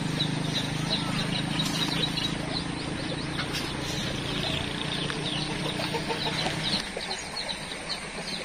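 Birds chirping and calling, over a steady low hum that stops about seven seconds in.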